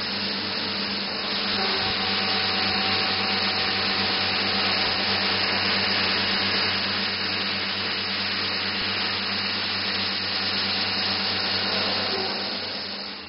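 CNC milling machine slot-milling C45 steel with an end mill at full 15 mm depth: a steady, loud cutting noise with a low hum underneath, fading out near the end.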